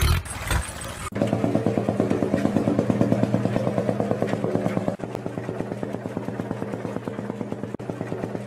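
Tractor diesel engine running with a steady, fast putter. It cuts in abruptly about a second in and drops a little in level about five seconds in. Before it, a short noisy stretch that fits wheels churning through muddy water.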